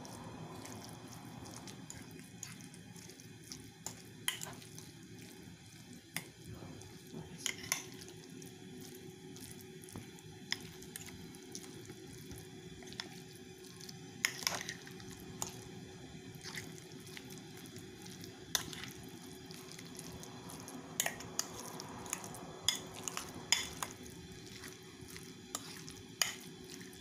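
A fork stirring and mashing guacamole in a baking dish: soft wet squishing, with short clicks of the fork tines against the dish every second or two, over a faint steady hum.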